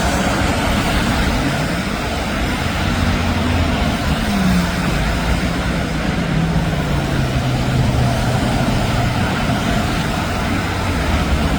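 Road traffic: a steady noise of motor vehicles, with one engine's drone falling in pitch partway through.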